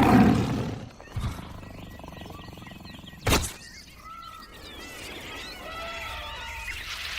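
Wild animal and bird-like calls, short chirping squeaks in the second half, with a loud thud at the very start and a sharp crack about three seconds in.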